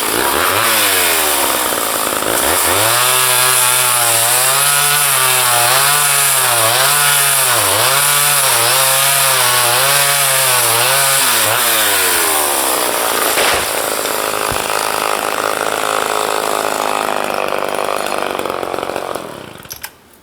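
Chainsaw revving up to high speed, its pitch dipping and recovering about once a second as the chain bites into wood. Then the pitch drops away, and the sound falls off steeply near the end.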